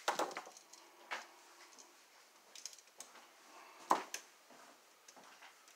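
Scattered light clicks and taps of a screwdriver and wires being worked against a three-prong wall outlet, with the sharpest knock about four seconds in.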